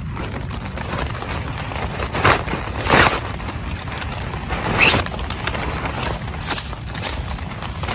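Steady rain noise with a low rumble underneath, broken by several short rustling scrapes of gear or fabric being handled.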